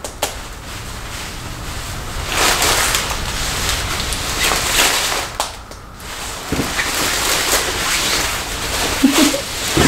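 Nylon barber cape rustling as it is fastened at the neck and smoothed down, a shifting swish of fabric with a few small clicks.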